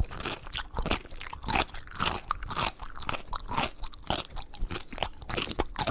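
Close-up chewing of something crisp: irregular crunches, several a second, throughout.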